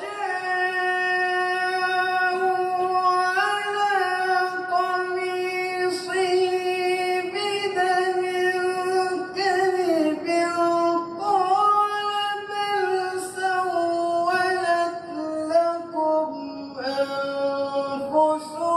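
A male qari's voice in melodic Quran recitation: long held notes with ornamented turns, the pitch stepping lower in the second half, with short pauses for breath.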